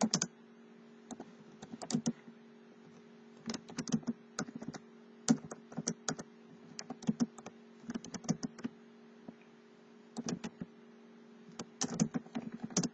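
Computer keyboard typing: short runs of keystrokes with pauses between them, over a faint steady hum.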